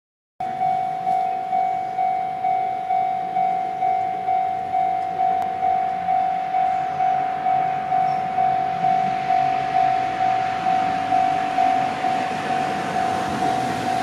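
Japanese railway level-crossing warning bell ringing at one pitch, about two dings a second, while the barriers lower: the signal that a train is approaching. A rushing noise builds underneath toward the end.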